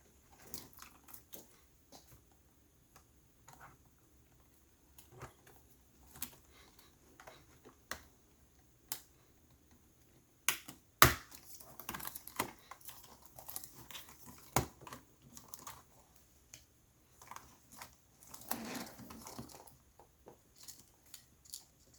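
Scattered light clicks and small plastic snaps as a ThinkPad X1 Yoga Gen 1 keyboard is pried free of its frame with a plastic pry tool, with a few sharper snaps about halfway through and a brief rustle a few seconds before the end.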